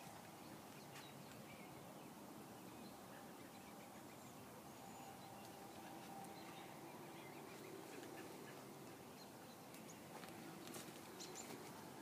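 Near silence: faint outdoor ambience with a few faint bird chirps, and some light ticks near the end.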